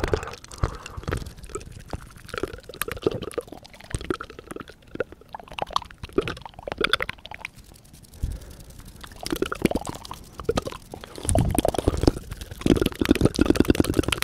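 Fast, wet mouth sounds close to the microphone: tongue fluttering and fingers fluttering against the lips, a rapid run of clicks and smacks. It thins out through the middle and grows louder and denser about eleven seconds in.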